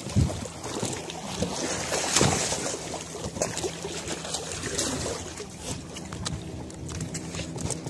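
Sea water sloshing against breakwater rocks and wind on the microphone, over a steady engine drone.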